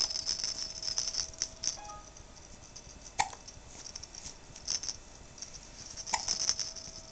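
Quick clusters of small rattling clicks from a baby bouncer seat's toys being batted and jostled, with two brief squeaks about three and six seconds in.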